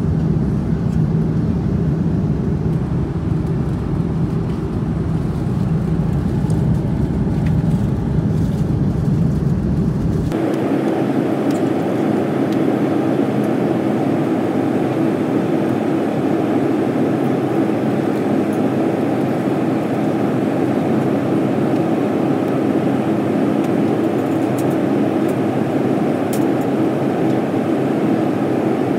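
Steady cabin noise of an Airbus A330-300 in flight, a constant rush of engines and airflow heard from inside the cabin. About a third of the way in, the sound changes abruptly, losing its deep low end and becoming thinner and higher.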